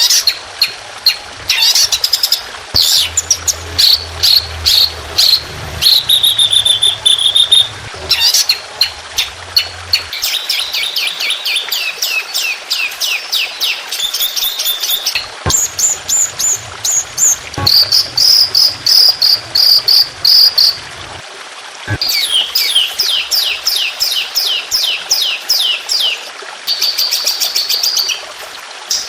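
Songbird song in quick phrases of rapid repeated sharp chirps and trills, some notes sweeping downward and some held as whistles, with brief breaks between phrases. It is a masteran recording of fast 'tembakan' (shot) phrases, made for training caged songbirds.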